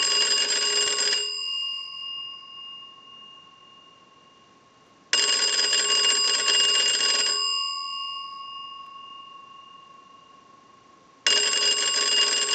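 The original twin brass gong bells of a Stromberg-Carlson wooden crank wall telephone ringing to an incoming-call ring cycle sent by a telephone line analyzer. The bells ring in bursts of about two seconds with about four seconds between them: one ending about a second in, one starting about five seconds in, and one starting near the end. Each burst leaves the gongs ringing on and fading.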